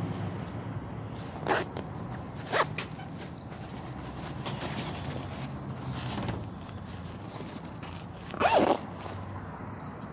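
Zipper on a hammock's fabric carry bag being pulled, in three short rasps, the last near the end the loudest and longest, over a faint steady low hum.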